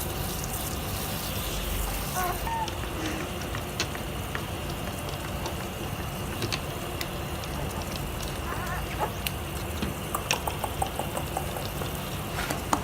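Water running and splashing during a puppy's bath, with scattered clicks and knocks and a few short high squeaks.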